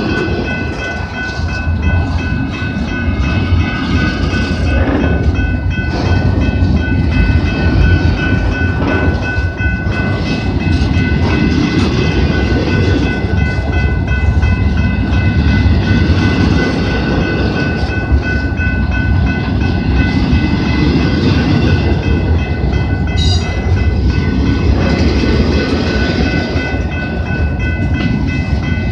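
Freight train of empty double-stack intermodal well cars rolling past: a steady noise of steel wheels on the rails, with several steady high ringing tones above it. A short high squeak about two-thirds of the way through.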